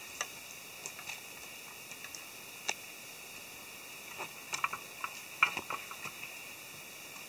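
Climbing tree stand being inched up a tree trunk: irregular knocks, clicks and scrapes of its metal frame against the bark, with a few louder clunks around the middle.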